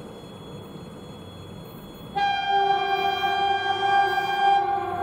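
VL10K electric locomotive heading a freight train sounds its horn about two seconds in, over the low rumble of the approaching train. A higher note starts first and a lower one joins a moment later; the higher note cuts off near the end while the lower one holds on.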